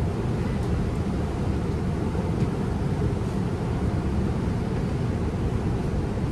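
Steady low rumble of vehicle noise that starts abruptly and holds at an even level throughout, with a few faint ticks in it.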